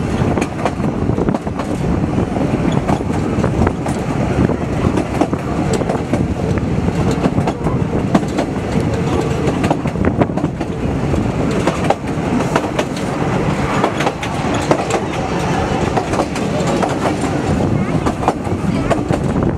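Narrow-gauge railway carriage running along the track, heard from on board: a steady rumble of wheels on rails with frequent short clicks and clatter.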